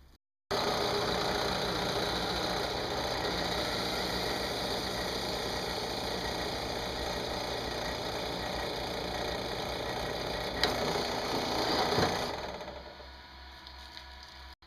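Bench drill press running while a hole saw cuts into a white PVC pipe tee: a steady motor hum and cutting noise. It falls away sharply about twelve seconds in.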